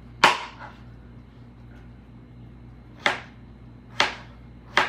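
A small knife chopping cucumber into bite-sized pieces on a cutting board. It strikes the board four times in short, sharp knocks: once just after the start, then three times in quicker succession near the end.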